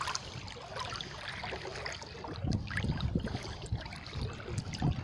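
Floodwater sloshing and splashing irregularly around a person wading waist-deep against a strong current.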